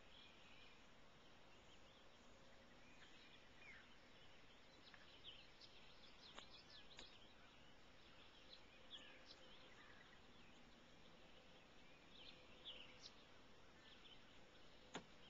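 Near silence with faint, scattered bird chirps, short quick notes sliding in pitch, and a single sharp click near the end.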